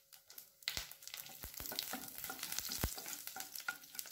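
Fresh curry leaves spluttering and crackling in hot oil in a non-stick kadai, starting about a second in, while a wooden spatula stirs the tempering of mustard seeds, urad dal and fennel.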